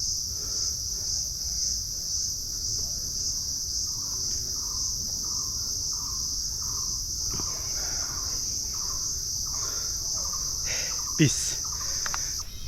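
Forest insects making a continuous high-pitched drone. A bird repeats a short note about twice a second for several seconds midway.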